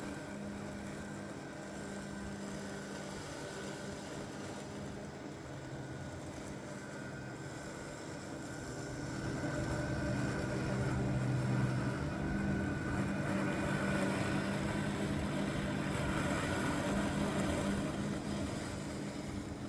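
Mammotion Luba 2 AWD robot lawn mower's electric motors running with a steady hum and whine. It gets louder about halfway through and eases off near the end.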